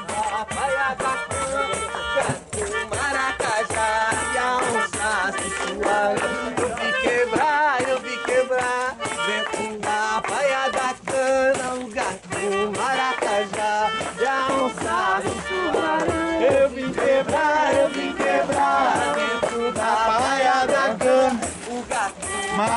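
Brazilian popular folk music: a man singing over a pandeiro, a frame drum with jingles, its jingles shaking and rattling in a steady rhythm.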